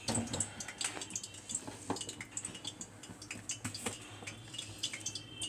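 Irregular clinks and taps of a spoon against steel bowls and a plastic spice jar while dried chilli powder is spooned out, over a low steady hum.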